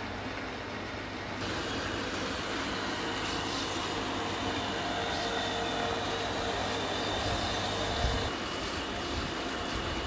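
Electric motor running steadily, spinning a wooden bead in a drill chuck while sandpaper is held against it: a steady whine with a sanding hiss that gets louder about a second and a half in.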